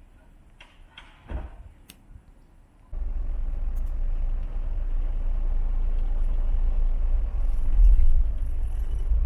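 Steady low rumble of a road vehicle in motion, starting suddenly about three seconds in after a few faint clicks.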